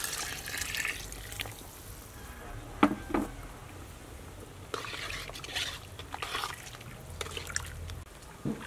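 Coconut milk pouring and splashing into a steaming pot of simmering bananas, followed by two sharp knocks about three seconds in. Then irregular sloshing and bubbling of the liquid in the pot as it is stirred.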